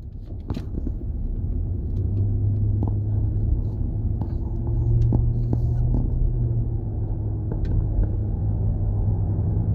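Low steady humming from a worn rear right wheel hub bearing on a 2014 Nissan Patrol Y62 while driving, mixed with road noise. The hum swells over the first couple of seconds, then holds. It is the sign of a failing hub bearing.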